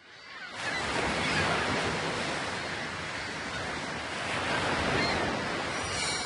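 Ocean surf washing, fading in over the first second and then gently swelling and easing.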